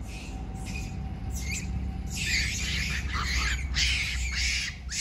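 A run of harsh, hissy high-pitched animal calls, faint at first and then coming about two or three a second from about two seconds in, over a steady low rumble.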